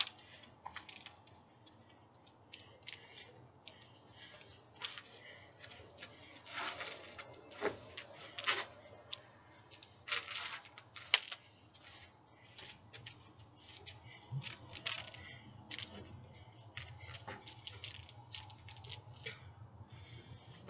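A spinning LED hula hoop making irregular short swishes and clicks as it is spun and handled, over a faint low hum.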